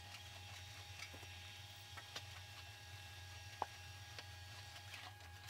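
Faint sound of a sheet-metal fender panel being rolled back and forth through an English wheel to blend out a high spot. A few light ticks sit over a steady low hum.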